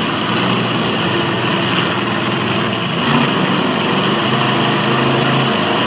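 Demolition derby car engines running, a steady engine drone under a wide wash of arena noise.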